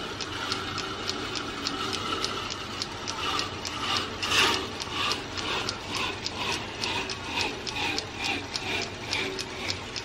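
Metal lathe running with a white oak workpiece spinning in its chuck as a fine-toothed hand saw is held against it to saw it off. Rapid, even ticking about four times a second over a steady rasp.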